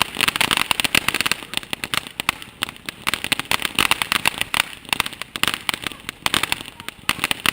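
Consumer firework crackling: a dense, continuous run of rapid small pops and cracks.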